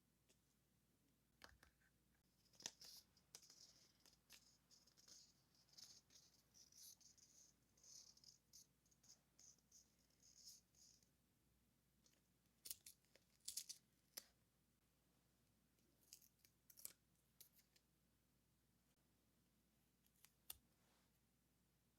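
Soft close handling of paper stationery: a scratchy rustle that runs for about eight seconds, then a few separate short crinkles and taps.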